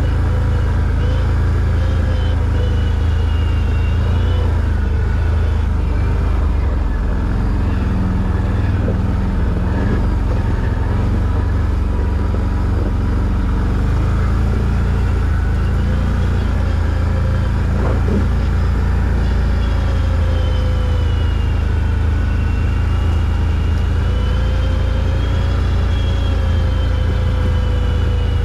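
ATV engine running steadily under way, its pitch drifting slowly up and down with the throttle.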